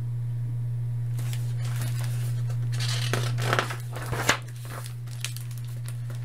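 Pages of a large picture book being turned by hand: paper rustling and swishing from about a second in until past the middle. A steady low hum runs underneath throughout.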